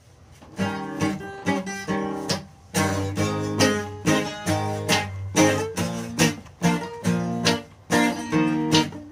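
Acoustic guitar strummed in a steady rhythm, chords ringing between the strokes: the instrumental intro of a song, before the singing comes in.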